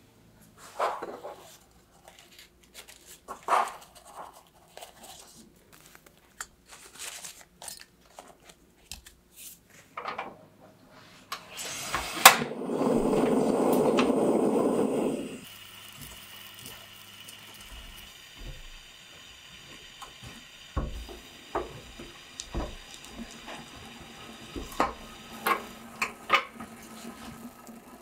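Kitchen handling sounds of milk tea being made in a small enamel pot: scattered light clicks and knocks, then a louder rush of sound lasting about three seconds near the middle. After that comes a faint steady hum as the pot sits on the stove over medium-low heat, with a silicone spatula tapping and scraping in the pot near the end.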